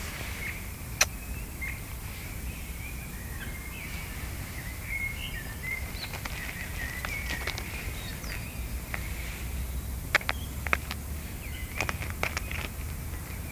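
Outdoor ambience: a steady low rumble with birds chirping and twittering through the first half, and a few sharp clicks near the end.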